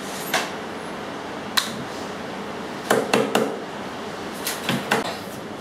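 Sharp metallic clanks and clicks from a pneumatically operated rod butt welding machine being worked: one near the start, one about a second and a half in, a quick run of three about three seconds in and a few more near the end, over a steady machine noise.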